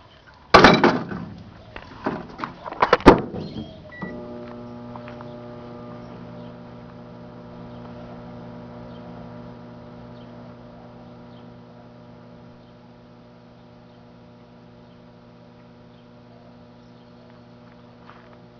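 Loud clattering and a sharp click, then about four seconds in a microwave oven switches on and runs with a steady electrical hum.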